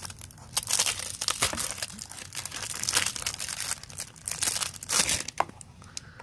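Clear plastic wrapper crinkling in irregular crackles as it is peeled off a small cardboard jewelry box.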